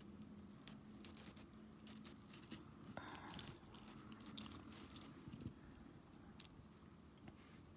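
Beaded necklaces and bracelets being handled and untangled, their metal and stone beads clicking lightly against each other in irregular little clusters of clicks.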